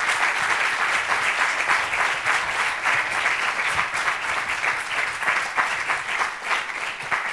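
Lecture-hall audience applauding steadily, a dense patter of many hands clapping, easing slightly near the end.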